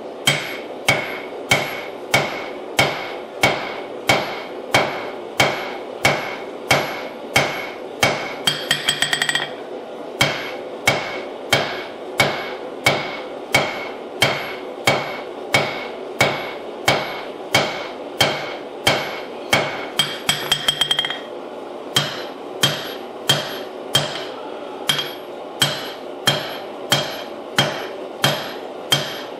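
Rounding hammer striking a hot damascus billet on an anvil, drawing it out: steady blows a little under two a second, each followed by a high ring from the anvil. Twice, about a third of the way in and again about two-thirds in, the blows give way to a quick run of light taps.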